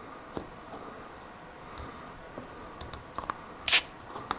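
Small clicks from handling a padlock and a can of Liquid Wrench penetrating lubricant. About three and a half seconds in comes one short hiss, a quick spritz of the lube into the lock.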